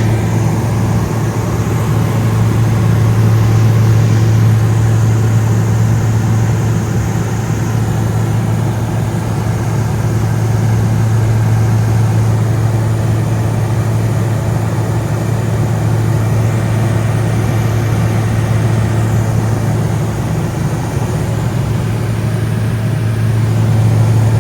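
Light aircraft's engine and propeller in steady cruise, heard from inside the cabin: a loud, even drone with a constant low hum under a rushing noise.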